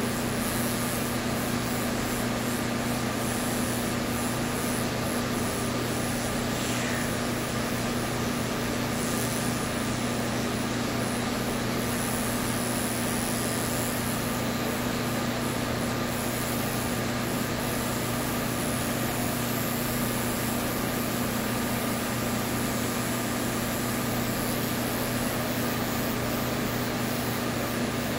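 Cordless pet clippers running with a steady hum as they shave tightly matted fur close to a Persian cat's skin.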